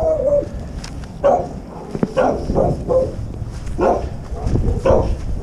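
Loose dog barking repeatedly: a string of short, sharp barks, about ten of them, over a low rumble.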